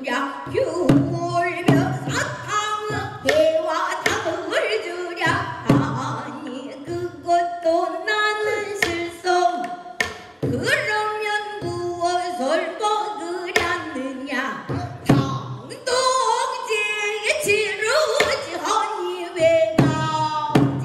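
Female pansori singer singing, her voice sliding and bending in pitch, with a buk barrel drum struck in time beneath her.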